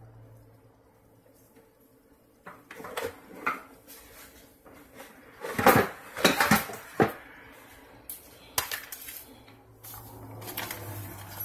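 Dishes clinking and clattering in short bursts, loudest in a cluster of clanks near the middle, as a plate is fetched and set down on the counter.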